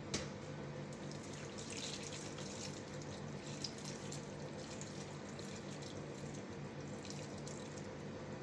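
A pot of maqluba, rice and meat in stock, simmering under a glass lid on a gas stove: steady bubbling with fine spitting crackles, over a steady low hum. A single sharp click comes just at the start.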